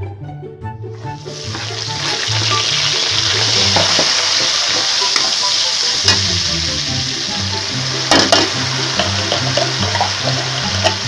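Chopped garlic and onion sizzling in hot oil in a wok, starting up about a second and a half in and running steadily, stirred with a metal spatula that gives a few sharper scrapes, the loudest about eight seconds in.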